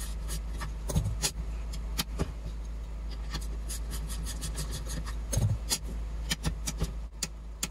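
Quick clicks of a ratchet wrench tightening the parking brake cable's adjusting nut. Then a run of separate clicks from the Toyota MR2 Spyder's parking brake lever ratchet as the lever is pulled up, the clicks counted to check lever travel against the 5 to 8 click spec.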